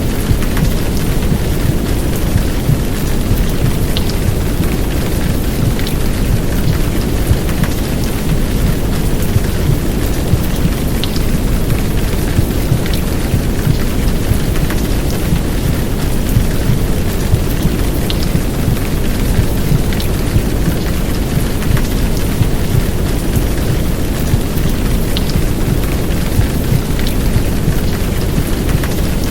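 Heavy downpour of rain, a steady hiss with occasional sharp drop ticks. It is layered over a deep, even low rumble of womb-sound white noise.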